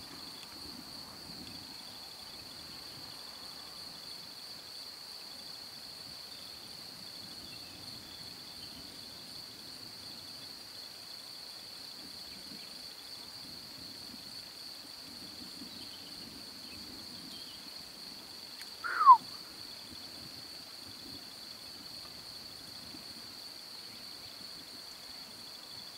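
Crickets chirring in a steady, even high trill, with one short whistle sliding downward about three quarters of the way through.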